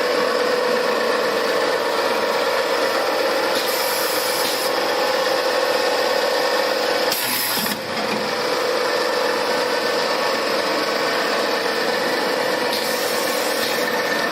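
Machinery on a refrigerator door gasket production line running steadily, with a constant hum. A short hiss and a brief dip in level come a little past halfway.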